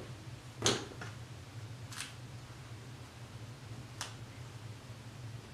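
Three faint, brief clicks, spaced a second or two apart, over a steady low hum: small handling sounds as hands work the short wig's hair and a small object.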